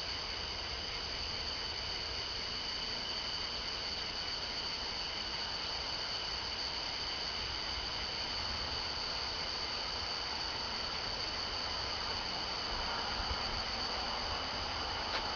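Steady chorus of night-singing insects, a continuous high shrill at two steady pitches.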